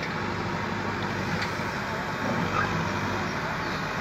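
Diesel engine of a backhoe loader, a 76 hp Kirloskar, running steadily.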